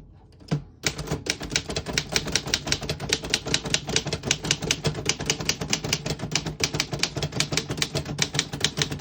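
Barr Universal portable typewriter being typed on: a quick, steady run of keystrokes, several a second, starting about a second in. The typebars strike cleanly, with none skipping or sticking.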